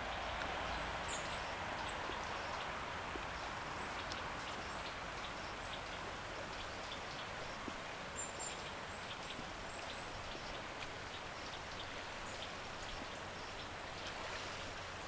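Flowing river water, a steady rush with many small ticks and patters on top, and a few brief high bird chirps.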